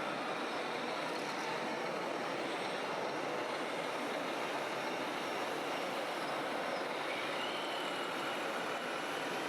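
Small electric motors and gearboxes of RC model trucks and construction machines running steadily, with a faint whine rising about three quarters of the way through.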